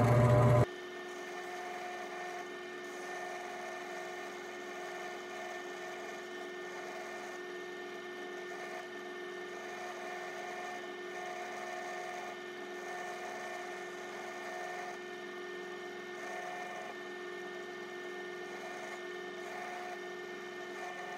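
Drill press motor running steadily with a constant hum, spinning a beeswax-impregnated felt burnishing wheel as a leather edge is worked against it. A brief loud noise comes right at the start.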